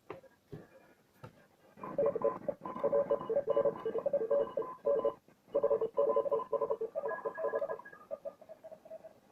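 An odd shortwave signal from the speaker of a Grundig Type 2041 WH radio: faint tones over static, then about two seconds in a loud run of rapidly switching beeping tones, like a data transmission, breaking off briefly midway and fading back to fainter tones near the end.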